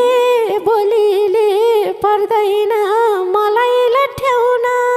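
Instrumental interlude in a Nepali folk song: a single melody instrument plays a wavering, ornamented tune in short phrases, with the drums dropped out.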